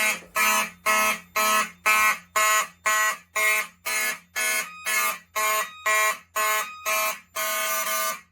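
Fire alarm notification appliances (Wheelock and Simplex horns) sounding the evacuation signal: a loud, harsh horn tone pulsing about twice a second. In the second half a second horn overlaps slightly out of step.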